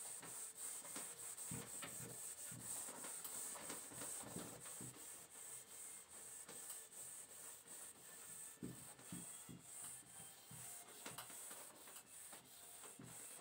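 Faint rubbing of a duster wiped back and forth across a whiteboard, erasing marker writing in uneven strokes.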